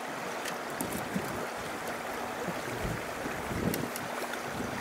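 Aizu Railway AT-700 diesel railcar running along the line, its engine a low drone under wind noise on the microphone, with a few sharp clicks.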